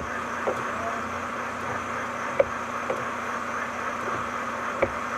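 Steady road and tyre noise of a car driving, with a constant low hum underneath and a couple of short sharp knocks.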